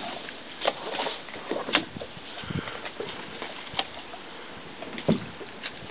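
Irregular knocks, thumps and rustling as mangrove branches are grabbed by hand and scrape against an inflatable boat being hauled through a tight tunnel, with the strongest thump about five seconds in.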